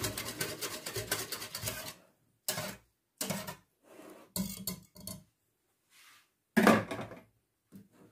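Wire whisk beating a cream sauce in an enamel pot, rapid clinking and scraping strokes against the pot's sides for about two seconds, to mix it smooth without lumps. Then a few separate clinks and knocks of the whisk and pot, the loudest knock near the end.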